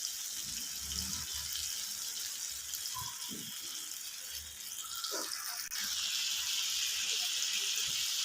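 Chicken tikka pieces on skewers sizzling in oil in a frying pan over medium heat, a steady hiss that gets a little louder about six seconds in.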